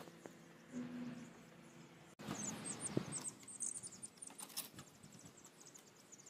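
Baby chicks peeping, many short high calls in quick succession starting about two seconds in, over rustling as they are handled, with one sharp knock about three seconds in.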